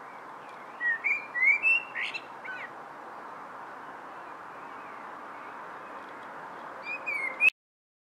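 A perched songbird singing two phrases of clear whistled notes with gliding pitches and higher twittering notes, the first about a second in and a shorter one near the end, over a steady background hiss. The sound cuts off suddenly just before the end.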